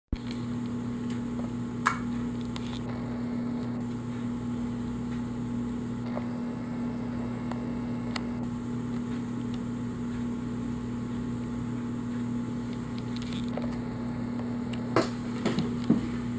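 A steady low hum with a few light clicks and taps of balsa-wood parts being handled and fitted, several close together near the end.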